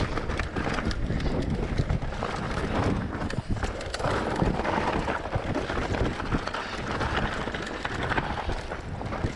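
Mountain bike riding over a rocky, stony track: tyres crunching over loose stones and the bike rattling with many small knocks, over a low rumble of wind on the camera microphone.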